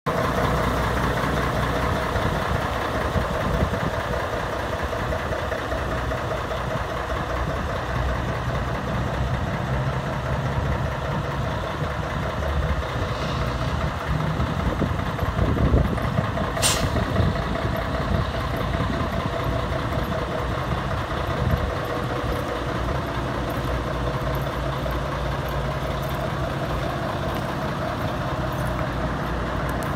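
Bell B40D articulated dump truck's Mercedes OM501LA V6 diesel running at a steady idle, with a brief sharp hiss about two-thirds of the way through.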